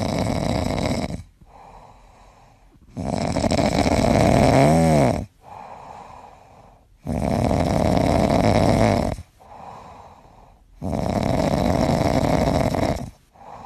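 A sleeping pet snoring loudly: four long snores about every four seconds, each lasting about two seconds, with softer breaths in between. The second snore ends in a wavering whistle-like tone.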